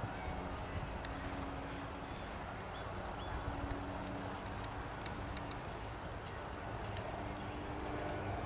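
Hoofbeats of a horse cantering and jumping over fences on a grass arena, heard over a steady outdoor background hiss with a few faint sharp clicks.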